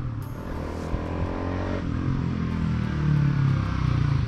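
A 150cc motorcycle engine coming closer down the street, growing louder as it approaches, its pitch shifting as the rider works the throttle.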